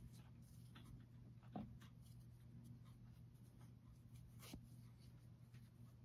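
Near silence: faint scratching and light ticks of a metal crochet hook working through yarn, over a low steady hum.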